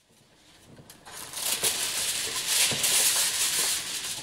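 Aluminium kitchen foil being pulled off its roll and handled, a crinkling rustle that builds over about the first second and stays loud until near the end.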